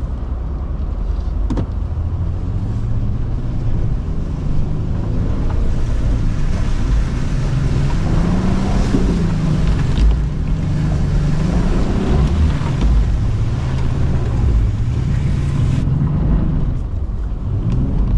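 Honda Passport's V6 engine revving up and down under load as the SUV churns through deep mud, its tyres slipping and fishtailing. Mud and water splash against the body and windshield.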